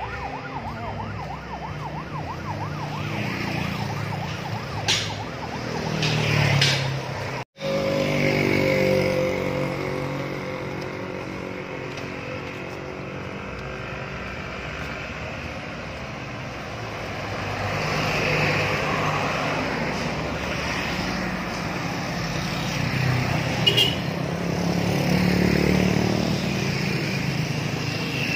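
Motor vehicle engines running and passing on a street, with one engine's pitch falling as it goes by about eight seconds in. The sound cuts out completely for a moment about seven and a half seconds in.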